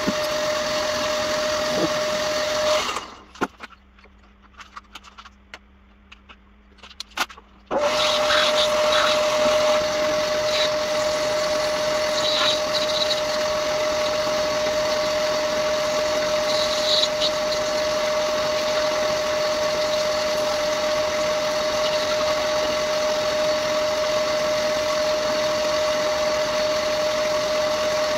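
Old metal lathe running, its cutting tool turning a bronze workpiece, with a steady whine over machining noise. About three seconds in the sound drops away for some five seconds with only a few light clicks, then the lathe runs on as before.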